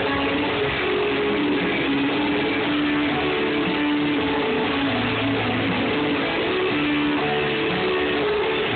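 Live rock music from a band with electric guitars, playing steadily with held notes and no pauses. It is picked up by a phone in the hall, so it sounds dull, with the highs cut off.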